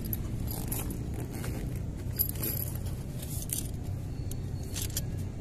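Scattered light clicks and clinks of small metal parts being handled against a wooden crossbow stock during a repair, over a steady low rumble.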